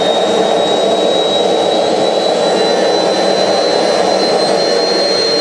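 Homemade jet engine running: a loud, steady combustion roar with a thin high turbine whine that climbs slowly in pitch.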